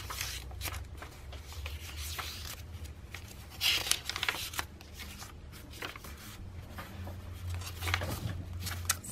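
Thick paper pages of a handmade journal being turned by hand, rustling and flapping as each leaf is flipped over, loudest about four seconds in.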